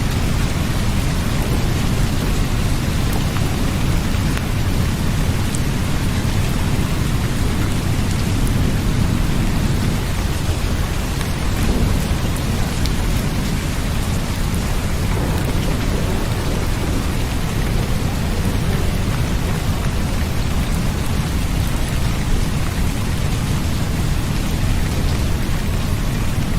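Steady rain recording with a deep, continuous low rumble underneath, even and unbroken throughout.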